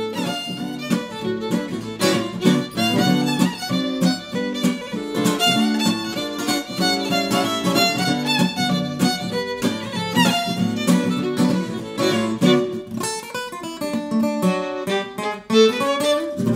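Fiddle tune over a plucked guitar accompaniment with a steady rhythm: background music.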